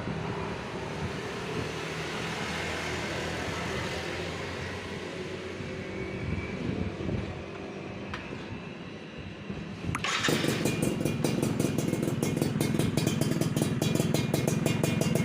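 Two-stroke motorcycle engine running through a Tornado racing exhaust, steady at first, then suddenly much louder with a fast, even pulsing about ten seconds in.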